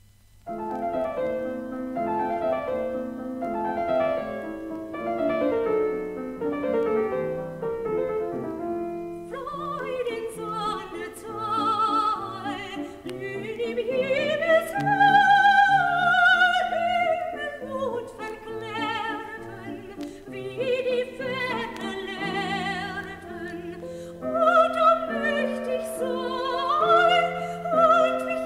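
Soprano singing an art song with piano accompaniment, played from a vinyl record. A piano introduction starts right after the silent groove between tracks, and the voice comes in about nine seconds in, with a wide vibrato.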